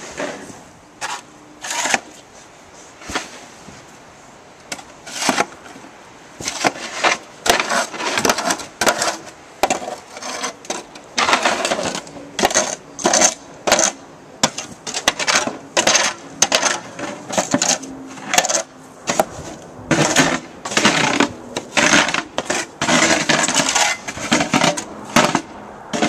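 Snow shovel scraping and knocking on the steps of a stoop as snow is cleared. There are a few separate strokes at first, then a quick run of repeated scrapes and knocks from about ten seconds in.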